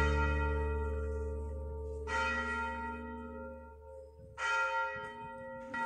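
A bell ringing, struck again about two seconds in, again a couple of seconds later and once more near the end, each strike ringing on and fading slowly.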